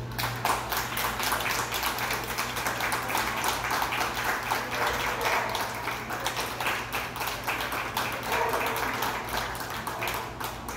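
Audience applauding: many hands clapping in a quick, dense patter that starts suddenly and dies away near the end.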